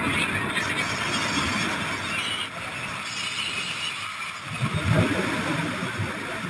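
Freefall wind rushing over a helmet camera's microphone, a steady buffeting noise with a louder low gust about five seconds in.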